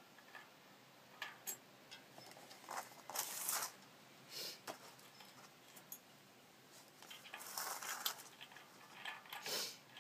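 Shimano cassette sprockets and spacers being handled and slid onto a bicycle freehub: scattered light metal clicks and clinks with a few short scraping rustles.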